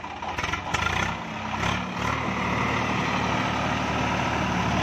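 Swaraj 855 FE tractor's three-cylinder diesel engine running under load while its rotavator churns a flooded paddy field for puddling. A few clattering knocks about half a second in, then the engine gets louder and runs steadily.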